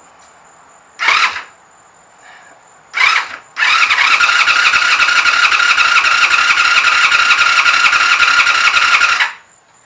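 1986 Honda VF500F Interceptor V4 engine cranked on its starter motor with the spark plugs out: two short bumps, then a steady whining crank of about five seconds that stops abruptly. The cylinders are flooded with gasoline, and the cranking pumps it out through the plug holes.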